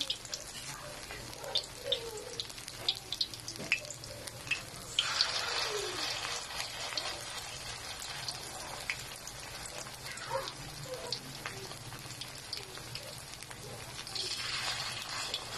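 Banana blossom and ground meat patties shallow-frying in hot oil in a wok, sizzling steadily with many sharp little pops. The sizzle surges louder about five seconds in and again near the end, as spoonfuls of fresh batter go into the oil.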